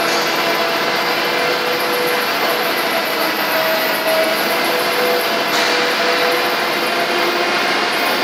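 High-frequency ERW steel pipe mill running, forming steel strip through its roll stands and welding it into tube. It makes a steady, loud mechanical noise with faint humming tones that shift up and down.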